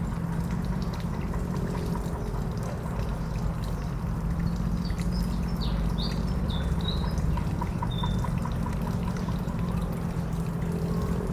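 A steady low rushing noise, with a few short, high bird chirps in the middle.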